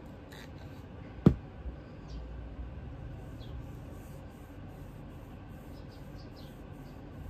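One sharp knock about a second in as the shotgun is moved on the work table. Then a cloth pad rubs the metal receiver with a soft, rhythmic swishing a few strokes a second. Faint high chirps sound in the background.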